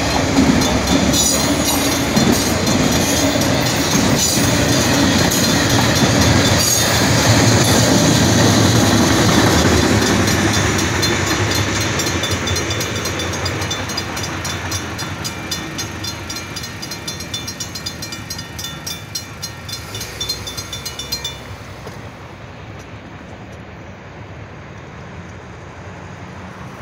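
A train passing over a road crossing, its cars rolling by with a steady clickety-clack of wheels over the rail joints. It is loud at first and fades over the second half; the clatter cuts off sharply a little past twenty seconds in as the last car clears.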